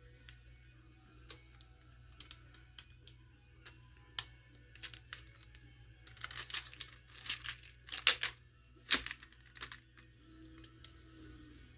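Small sharp clicks and taps of hands and tools working inside an open laptop, then a few seconds of thin plastic film crinkling and rustling, loudest about eight to nine seconds in.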